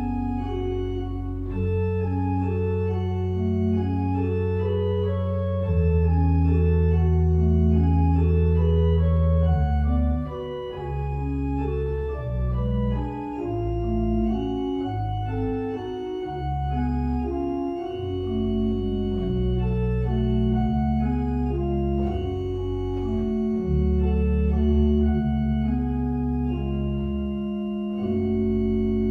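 Church organ playing slow, sustained music: long held pedal bass notes under chords and a moving upper line, the bass breaking into shorter stepping notes about ten seconds in.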